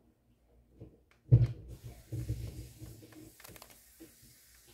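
A sharp knock about a second in, then water pouring into the reptile's food mix for about three seconds, with light handling clatter underneath.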